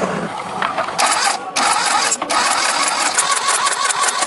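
A small motor or power tool running with a steady high whine over a hissing, grinding noise. It starts about a second in and cuts out briefly twice.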